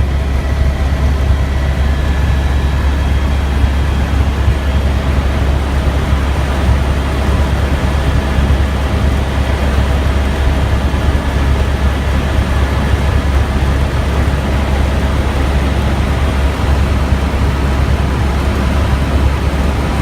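Tour helicopter in steady flight, heard from inside the cabin: a constant low drone under an even hiss of engine and airflow.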